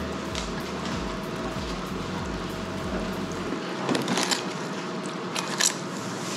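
Hands working sand fleas (mole crabs) through breading mix in a glass bowl: soft handling noise over a steady hum, with a few short, sharp clinks about four seconds in and again near the end.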